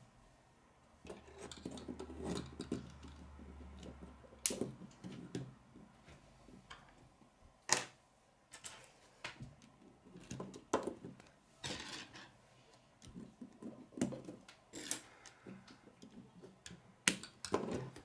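Plastic K'nex rods and connectors being handled and snapped together, irregular clicks and clacks with a few sharper snaps, and pieces knocking on a wooden tabletop.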